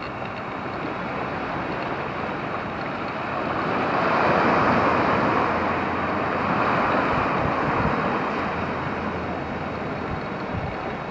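Surf washing onto a sandy beach: a steady rush of water that swells about four seconds in and eases off towards the end.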